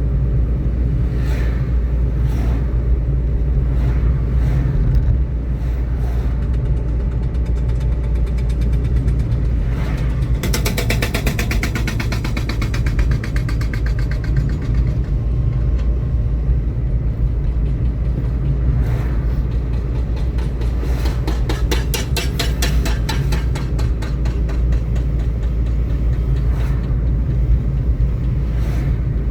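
A vehicle driving on a road: a steady low rumble of engine and tyres. Two spells of rapid, even rattling come in, one about ten seconds in and another around twenty seconds in.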